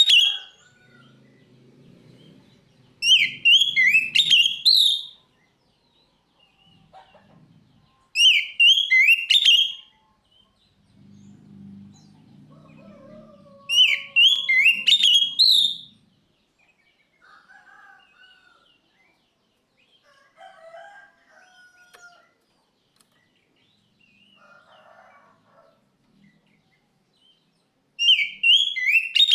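Oriental magpie-robin (kacer) singing loud, rapid phrases of whistled notes, each about two seconds long and repeated every few seconds. Fainter chirps fill the gaps, and a longer quiet stretch comes before the last phrase near the end.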